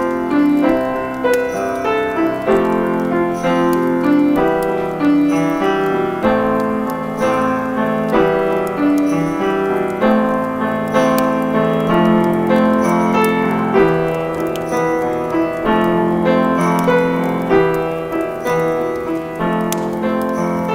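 Piano playing a slow, steady instrumental passage of chords.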